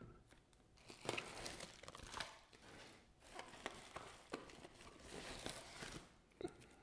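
Bubble wrap lining a cardboard shipping box rustling and crinkling as a shrink-wrapped board game box is pulled out of it, faint, with a few sharp crackles.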